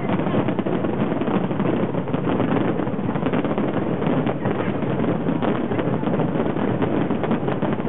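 A fireworks display going off in a continuous barrage: a steady dense rumble thick with many small crackles and pops.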